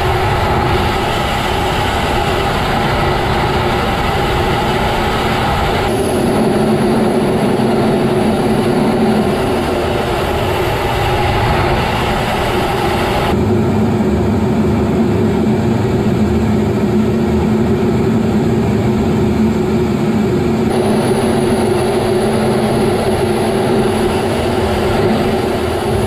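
Steady noise inside a Rafale fighter's cockpit in flight: engine and airflow noise with a few steady humming tones. The noise changes abruptly in character three times.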